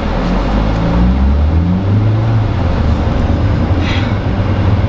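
Car engine and road rumble heard from inside the cabin as the car pulls away, the engine note rising over the first two seconds and then settling into a steady low drone.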